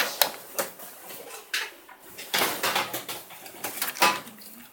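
Irregular sharp clicks and knocks of hard objects being handled, a dozen or so, with a denser patch about halfway through.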